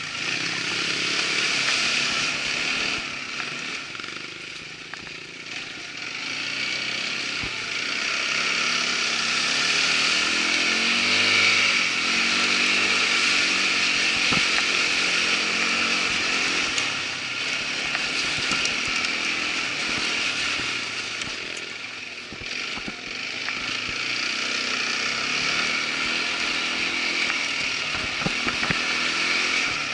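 Irbis ATV 200 quad bike engine running under way, revving up and easing off over and over, with the throttle backing off about four to six seconds in and again a little after twenty seconds.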